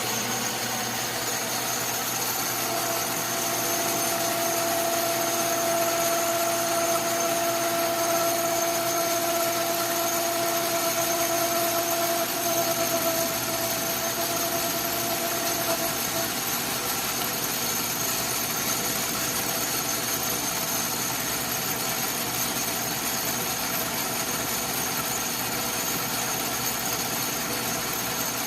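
Atlas metal lathe running steadily while facing aluminium, with a constant machine whine. A clear singing tone joins about three seconds in and fades out around halfway through.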